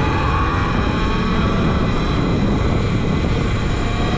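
Talaria Sting R electric dirt bike riding on pavement at about 15 mph: the knobby Pivotrax rear tire hums on the road along with the electric motor's whine, with heavy wind buffeting the microphone. The steady tire hum is the road noise this aggressive-tread tire makes on hard surfaces.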